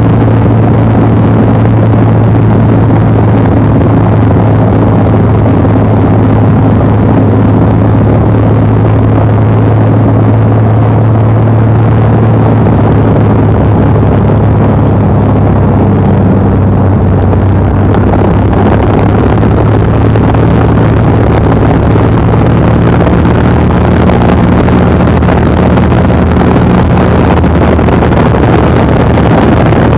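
Piston engine of an L-19 Bird Dog tow plane running steadily, heard inside the cabin with rushing air noise. It is a steady low drone whose tone shifts slightly about halfway through.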